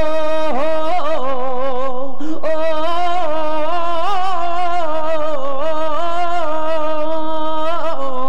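A solo singer draws out a slow sung phrase in flamenco style: long melismatic notes wavering with vibrato, with a short break for breath about two seconds in.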